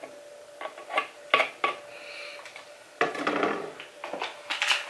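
Plastic bottle cap being fitted and plastic bottles handled on a tabletop: a series of light clicks and knocks, with a brief rustling scrape about three seconds in.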